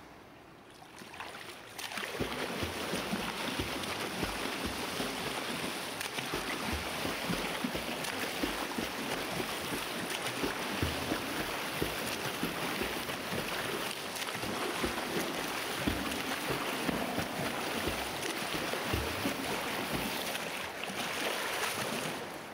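Water sloshing and splashing with irregular low thuds. The sound swells up about two seconds in and fades near the end.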